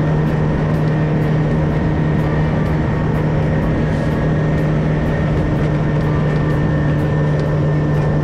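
Mercury outboard motor driving a small skiff at a steady cruising speed: an even, unchanging low engine drone over a broad rush of wind and water.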